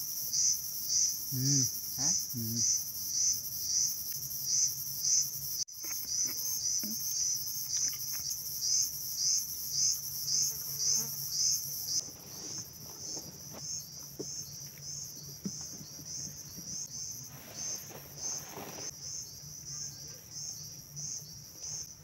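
Insects calling with a high, pulsing chirr that repeats about one and a half times a second. About twelve seconds in it becomes quieter and the pulses less distinct.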